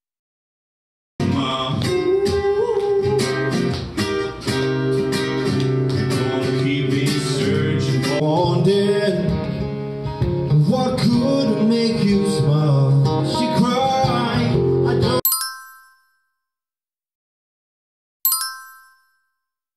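A man singing to his own acoustic guitar strumming. It starts about a second in and cuts off abruptly about fifteen seconds in. Near the end a single short chime rings and fades.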